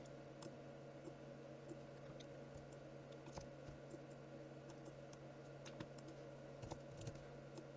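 Faint, scattered clicks of a computer keyboard and mouse, irregularly spaced, over a steady low hum.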